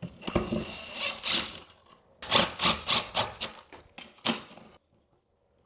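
Clicks and knocks of an electrical wall outlet being handled and fitted into its box, with a run of about eight sharp clicks at roughly three a second that stop abruptly.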